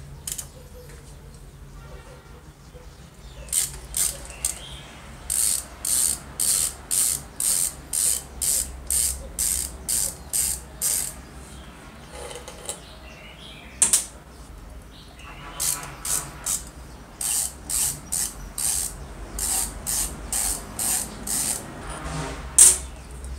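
A screwdriver turning out a screw from the switch cover of an old electric drill motor. It makes short clicking, rasping bursts about twice a second in two long runs, with a pause in the middle broken by a single sharp click.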